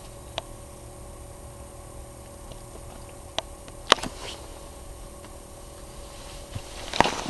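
A steady electrical hum with a few sharp clicks and knocks: one about half a second in, two around three and a half to four seconds, and a louder cluster near the end.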